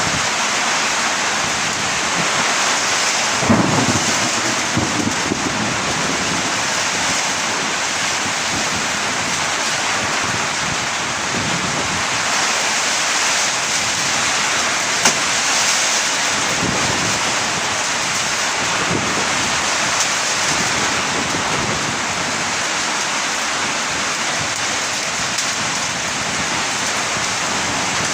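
Heavy summer-storm rain pouring steadily with strong, gusty wind. A low rumble swells about three seconds in and fades over a few seconds, and there is a single sharp knock about halfway through.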